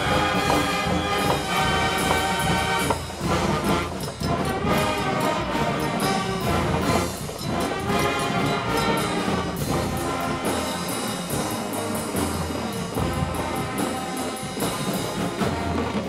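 Marching band playing: massed brass with drums and cymbals.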